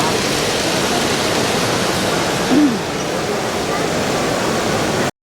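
Steady hubbub of a crowded exhibition hall, a dense wash of many voices, with one voice rising briefly above it about halfway through. The sound cuts off suddenly near the end.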